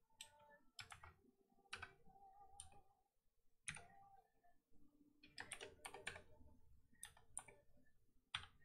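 Faint, irregular keystrokes on a computer keyboard, coming singly and in short quick runs with pauses between.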